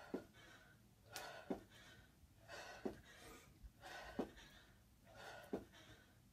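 Hard, gasping breaths between repeated jump-squats, with a short thud about every second and a half as both feet land on a carpeted floor, five landings in all.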